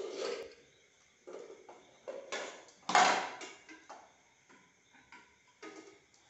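A steel plate knocking and scraping on a tiled floor as a toddler eats from it by hand: a handful of separate clatters, the loudest about three seconds in.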